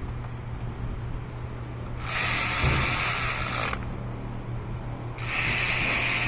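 Electric ratchet running in two short bursts, each under two seconds, as it tightens spark plugs.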